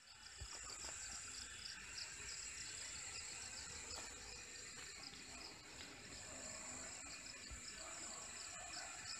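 Insects chirping: a faint, steady, high-pitched pulsing trill that repeats evenly.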